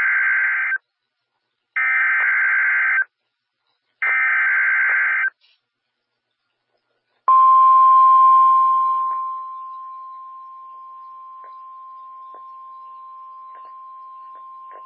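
NOAA Weather Radio alert opening: three bursts of SAME digital header data, each about a second long with short gaps, signalling that a new warning is starting. Then the steady single-pitch Weather Radio warning alarm tone, which starts loud, drops to a lower level about two seconds in and holds, with a few faint ticks of static.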